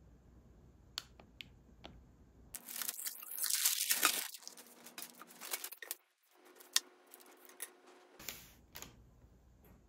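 Thin paper bag crinkling and rustling as items in plastic sleeves are slid out of it, loudest for a second or two near the middle, with a few light clicks and taps as things are handled and set down on a table.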